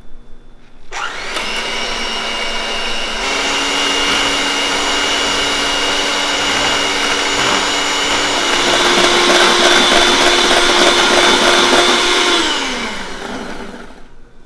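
Black+Decker electric hand mixer whipping egg whites in a stainless steel bowl toward a meringue. Switched on about a second in, its whine steps up in pitch twice, then winds down with a falling pitch as it is switched off near the end.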